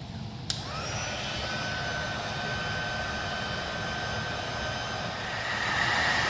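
Electric heat gun switched on with a click about half a second in, its fan spinning up with a rising whine and then blowing steadily while it shrinks heat-shrink tubing over a crimped battery-cable connector. It gets louder near the end.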